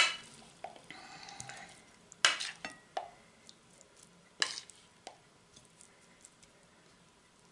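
A metal spoon scraping and clinking against a glass bowl and a china plate as shredded cabbage salad is served. Three louder clinks come about two seconds apart, then fainter small ticks.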